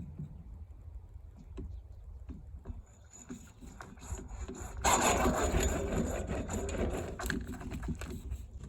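A low, steady engine rumble under a long scrape of loose dirt and gravel. The scrape starts suddenly about five seconds in, is the loudest sound, and fades out over about three seconds.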